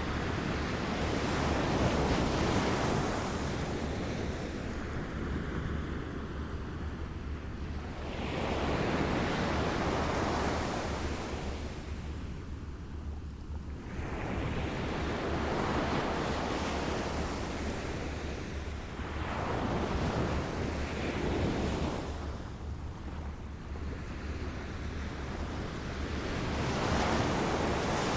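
Small waves lapping and washing against a shore, a swell every six or seven seconds that rises and falls back, over a steady low rumble of wind on the microphone.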